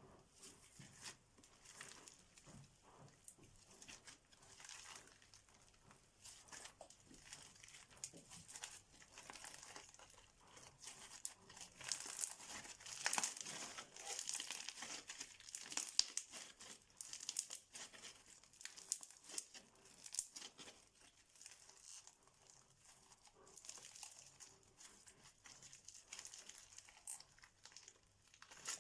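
Crunchy, sticky slime being squeezed and pressed by hand, giving a dense, irregular crackling of small pops and clicks. It grows louder about halfway through, then settles again.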